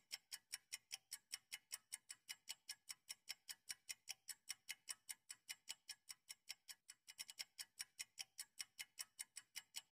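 Clock-style ticking sound effect of a quiz countdown timer: quick, even, faint ticks, about five a second, stopping just before the end.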